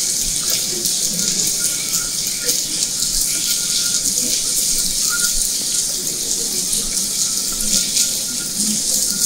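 Steady rain falling on a wet paved patio: an even hiss, flecked with many small drop strikes.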